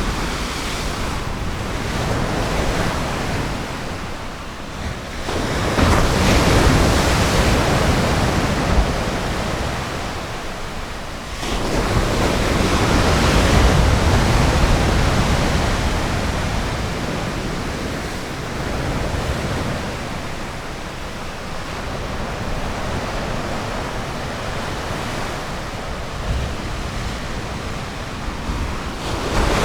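Ocean surf breaking and washing ashore in a steady rushing hiss, swelling as waves come in about six seconds in and again about eleven and a half seconds in.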